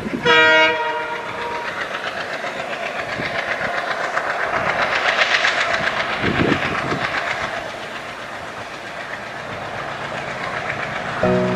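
A train horn sounds briefly at the start. A passing train then runs along the rails with a steady rumble and a fine, rapid clatter that grows loudest midway and then fades. Music comes in near the end.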